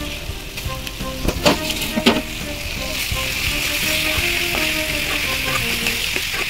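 Crab pieces sizzling in hot oil and spice masala in an aluminium kadai as they are stirred in with a metal spoon, which knocks against the pan twice between one and two seconds in. The sizzle grows louder in the second half as the crab fries.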